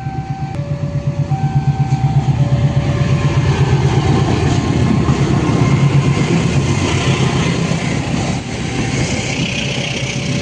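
A diesel train passes through a railway level crossing: its engine runs with a fast, even pulsing that builds over the first few seconds, followed by the hiss of wheels on rail. The crossing's electronic warning alarm, alternating between two tones, sounds under it at the start and faintly again near the end.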